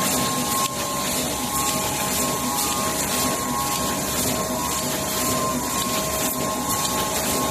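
LC-416T full-servo rotary tube screen printing machine running, a steady mechanical hum with a steady whine and light, uneven ticking over it.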